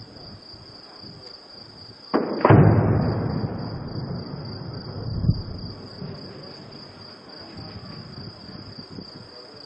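A heavy-weapon blast goes off about two seconds in and rolls on in a long echo for several seconds, with a second, smaller bang around five seconds in. Crickets chirp steadily underneath.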